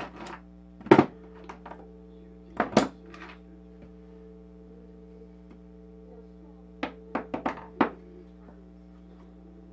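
Hand tools and small metal parts being picked up and set down on a plywood workbench: a sharp knock about a second in, a double knock near three seconds, then a quick run of five knocks and clicks around seven to eight seconds. A steady low hum runs underneath.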